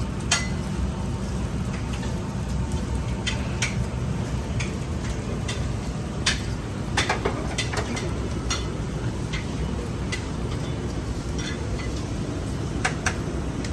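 Kitchen clatter at a döner counter: scattered clicks and clinks of metal utensils and dishes over a steady low hum.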